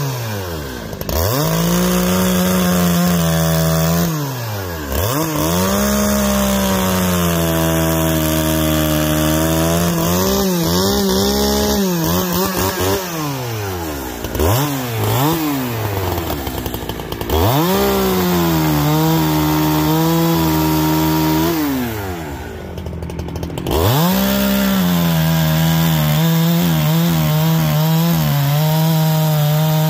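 Farmertec Holzfforma G372XP two-stroke chainsaw running hard while bucking maple logs, its engine note falling and climbing again several times as it goes in and out of the cuts.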